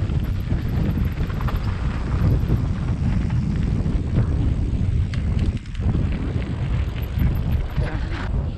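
Wind noise buffeting the microphone of a mountain bike rolling down a rocky gravel singletrack, mixed with the crunch of the tyres and the rattle of the bike. In the second half, a few sharp clicks and knocks come from the bike jolting over rocks.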